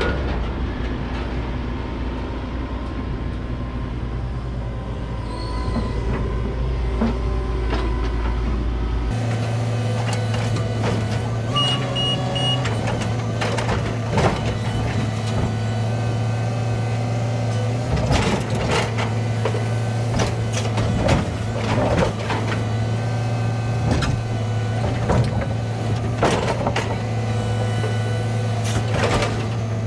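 Diesel engine of a rail-mounted grapple crane on a maintenance-of-way work train running steadily while the crane works. Sharp metallic clanks and knocks come repeatedly in the second half, with three short warning beeps about twelve seconds in.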